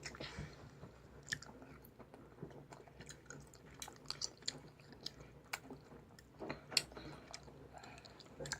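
Faint, close-up chewing of a sour candy, with many small irregular mouth clicks and smacks.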